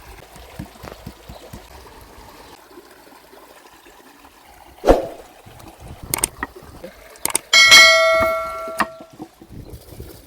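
Cooking sounds: a thud, a couple of clicks, then a metal object struck once and ringing with a clear bell-like tone that dies away over about a second.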